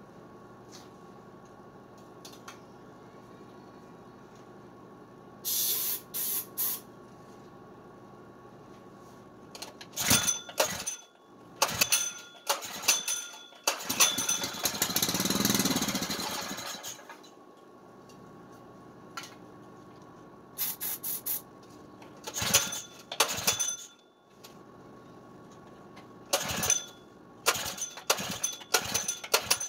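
A spray can gives three short puffs of hiss into a small single-cylinder four-stroke engine. Then the recoil pull-start cord is yanked in repeated bursts, with the engine briefly catching for a few seconds about halfway through before it dies. This is a test of whether the engine will start on a shot of spray.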